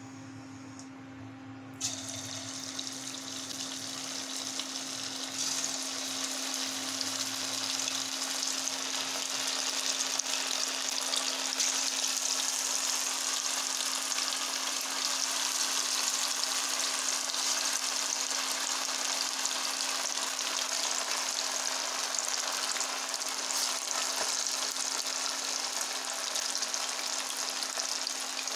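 Marinated chicken pieces deep-frying in hot oil in a kadai. The sizzle starts suddenly about two seconds in as the pieces go into the oil, grows louder over the next several seconds, then holds steady.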